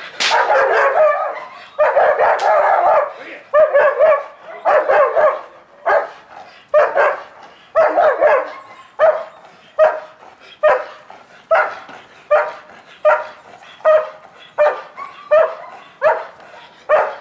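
A dog barking over and over in short, sharp barks, longer and denser for the first few seconds, then evenly spaced and coming faster, about two a second by the end.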